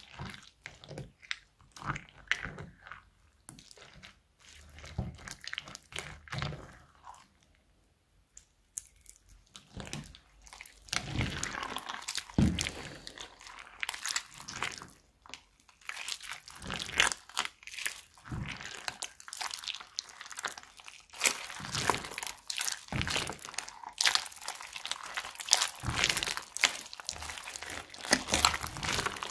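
Crunchy clear slime loaded with plastic beads being stirred with a spatula and then kneaded by hand, giving a stream of crackling clicks and crunches. The clicks are sparse at first and become dense and louder from about ten seconds in.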